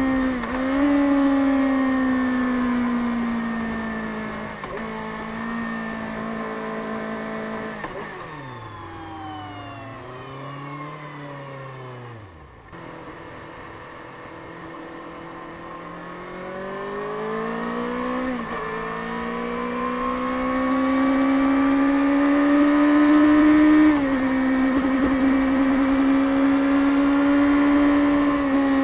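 Kawasaki Ninja ZX-6R 636's inline-four engine running through its stock exhaust while riding, with several gear shifts that briefly drop the revs. About a third of the way in the engine winds down to a quiet low point, then pulls back up and holds steady revs again.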